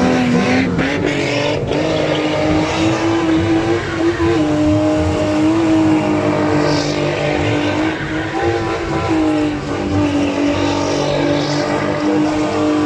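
Toyota Altezza's 1JZ straight-six engine running at a steady pitch. The engine has a misfiring problem.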